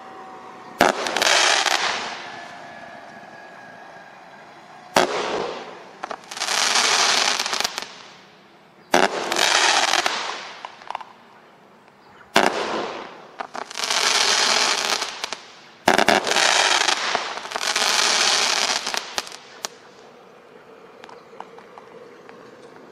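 P5525 Gender Reveal Smoke Cake, a 30-shot consumer firework cake, firing in five volleys a few seconds apart. Each volley starts with a sharp bang and is followed by a second or two of loud rushing, crackling noise from the smoke shots. The firing stops about 20 seconds in.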